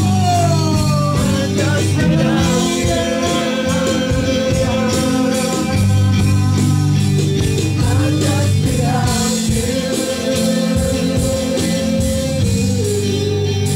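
Live worship band playing a slow song: voices singing long held lines over electric guitar and keyboard.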